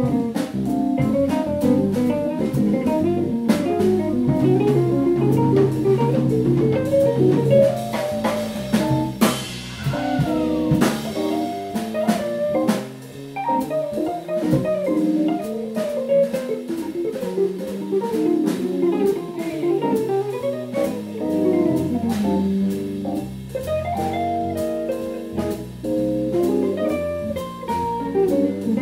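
Jazz guitar solo on an archtop electric guitar, a quick run of single-note lines over an electric bass and a drum kit keeping time.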